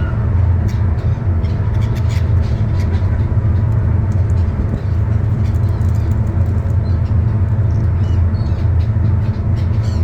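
Steady low engine rumble, with a few faint, short seagull calls above it.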